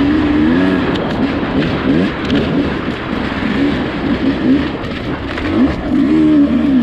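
Beta RR250 dirt bike's engine revving up and down as the bike is ridden over a sandy, rocky trail, heard from a camera mounted on the bike, under a constant rush of wind and rattle.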